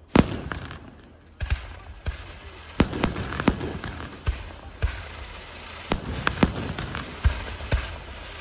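Aerial firework shells bursting overhead: a loud bang just after the start, then an irregular run of sharp reports over continuous crackling.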